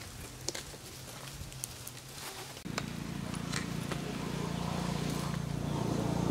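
Wood fire crackling under a wok in scattered sharp pops. About halfway through, a steady low drone of unclear source comes in and slowly grows louder.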